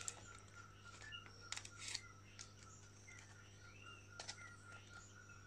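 Near silence over a steady low hum: a few faint clicks and rustles of fingers setting pins and paper strips on a polystyrene spreading board while a cicada's wings are pinned.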